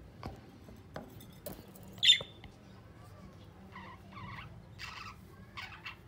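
Caged budgerigars chirping: one loud, sharp squawk about two seconds in, then four short chirps near the end, with a few faint clicks in the first second and a half.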